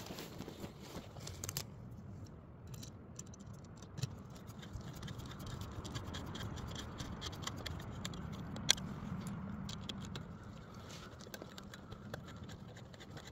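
Hand screwdriver turning a screw through a metal rail clip into a wooden tie: faint scratching and scraping of steel on steel, with scattered small clicks and one sharper click about nine seconds in.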